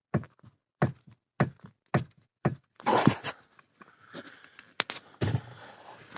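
A run of knocks, a little under two a second, from the splined joint of a Lada XRAY Cross steering shaft, with a louder clatter about halfway through. The clamp nut on the joint was left untightened after a dealer repair, so the shaft moves in its splines.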